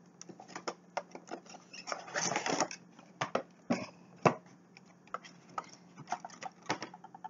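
Packaging being handled as a bobblehead figure is taken out of its box: scattered clicks and taps, a crinkling rustle about two seconds in, and one sharp knock a little after four seconds. A faint steady low hum runs underneath.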